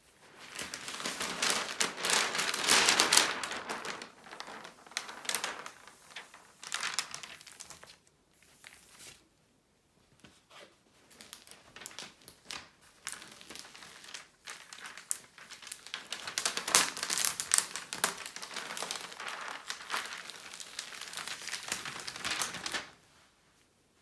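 Thick plastic protective film being peeled back from a sticky diamond painting canvas, crinkling and crackling in uneven stretches. It is loudest in the first few seconds and again through the second half, and stops shortly before the end.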